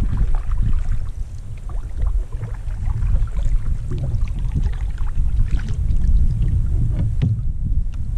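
A fishing kayak on the water with a steady low rumble and scattered small knocks and clicks as the angler handles his gear.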